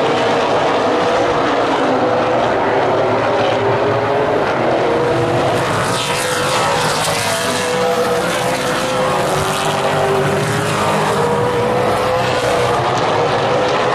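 A field of super late model stock cars' V8 engines running at racing speed, several engine notes overlapping and rising and falling in pitch as the cars lap. The loudest pass comes about six seconds in, its pitch dropping as the car goes by.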